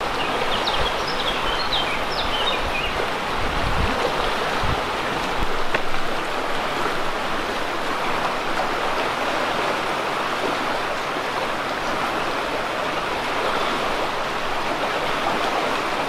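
Shallow, fast river riffle rushing over stones, a steady even rush of water. There are a few faint high chirps in the first couple of seconds.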